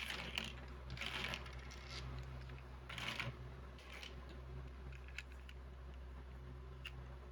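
Small plastic Lego bricks rattling and clicking as they are handled. There are rattling bursts at the start, about a second in and about three seconds in, then scattered light clicks, over a steady low hum.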